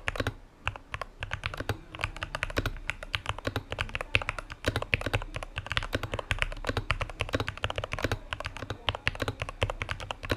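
Fast typing on a Royal Kludge RK61 mechanical keyboard modded with lubed Gateron Milky Yellow Pro linear switches, EVA and PE foam and tape: a quick, steady run of key clacks, with a brief pause just after the start.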